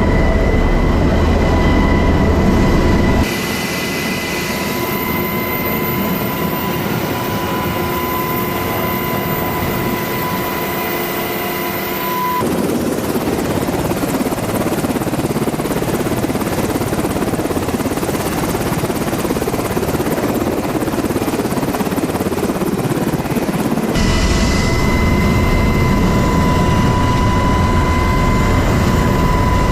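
UH-60 Black Hawk helicopters running: rotor noise with a steady high turbine whine from their twin turboshaft engines. The sound changes abruptly three times, about three, twelve and twenty-four seconds in.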